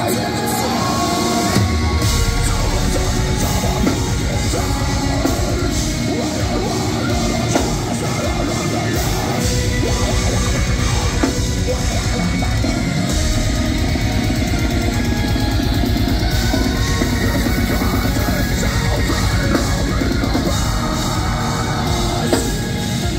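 Deathcore band playing live in a hall, heard from within the crowd: fast, dense drumming under down-tuned heavy guitars, with harsh screamed vocals. The low end fills out about a second and a half in.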